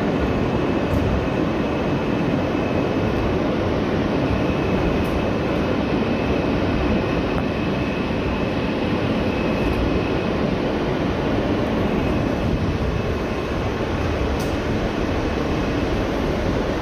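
R160B subway train running along the track, heard from inside the car: a steady rumble of wheels on rail, with a faint high whine that comes and goes.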